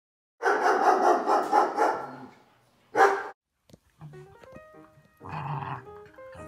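Two dogs, a Shiba Inu and a dachshund, play-fighting: loud rough dog vocalising for about two seconds, a single sharp bark about three seconds in, then quieter growls over background music with a simple melody.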